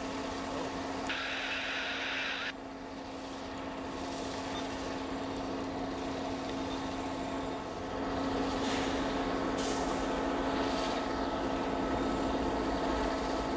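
MBTA HSP-46 diesel-electric locomotive's engine running with a steady drone as it moves through the yard, growing somewhat louder about eight seconds in. A short hiss of air is heard about a second in.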